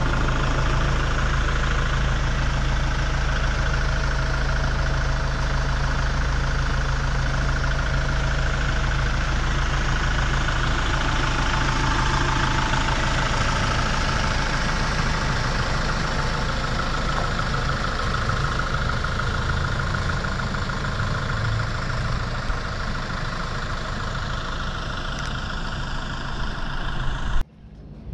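Kubota L6060 tractor's four-cylinder diesel engine idling steadily. The sound drops away abruptly near the end.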